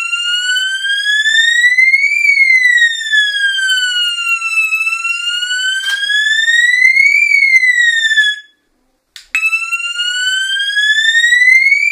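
Fire alarm siren set off from a pull station, sounding a slow wail that rises and falls about every five seconds. It cuts off after about eight and a half seconds and, after a click, starts wailing again from the low note about a second later.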